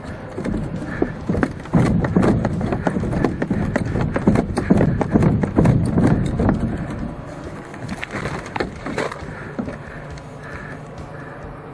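Footsteps of a player running over rough field ground, a fast run of loud irregular steps from about two seconds in that slows and thins out near the end.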